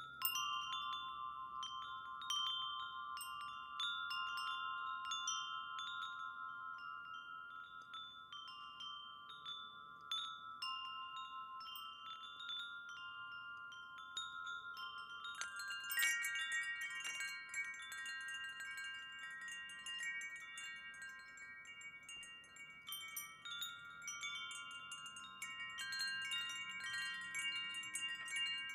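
Wind chimes ringing, many struck tones overlapping and sustaining. About halfway through, a brighter, busier layer of chimes joins in.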